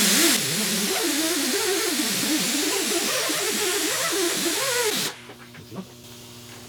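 Power tool with a polishing attachment buffing an aluminium intake manifold: a loud hiss of the pad on the metal over a motor whose pitch wavers up and down with the pressure. It stops about five seconds in, leaving a faint steady hum.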